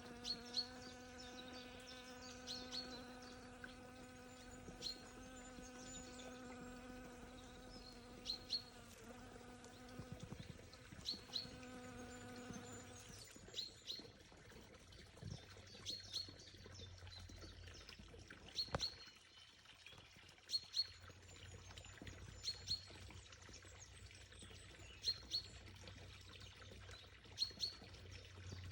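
A flying bee buzzing with a steady hum that wavers briefly and then stops a little before halfway through. Birds chirp in short, high calls repeated all through, over a faint background of running water.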